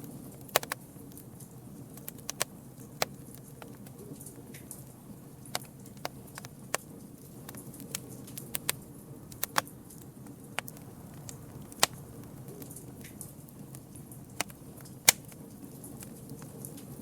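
Campfire burning: a steady low rumble of flames with irregular sharp crackles and pops from the burning wood, one loud pop near the end.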